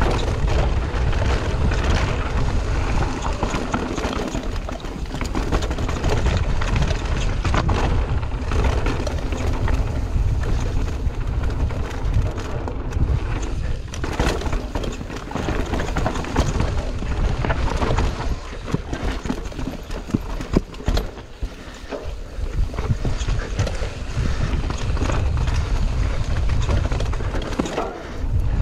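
Mountain bike descending a rocky dirt trail: wind buffeting the microphone with a heavy rumble, while the tyres crunch over stones and the bike rattles and knocks over bumps.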